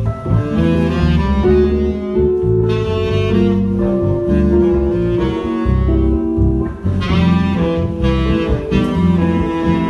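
Live jazz trio: a saxophone plays long held melody notes over electric guitar and keyboard accompaniment with a strong bass line.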